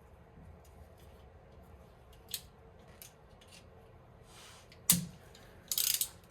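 Small clicks and handling sounds of hand work on electrical wiring, with a sharp snap about five seconds in and a short rasp near the end.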